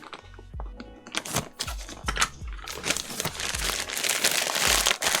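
Background music with a steady bass beat, over bursts of crinkling, rustling handling noise and scattered clicks, densest in the second half.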